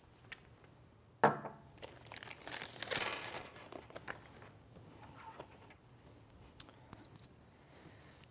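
Small metal tools and hardware clinking and rattling as they are picked up from a workbench, densest around three seconds in. A single sharp knock comes about a second in.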